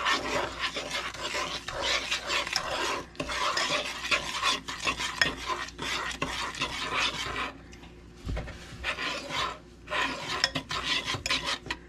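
A fork beating melted butter and granulated sugar in a small metal saucepan: quick scraping, rasping strokes against the pan's bottom and sides, pausing briefly twice in the second half.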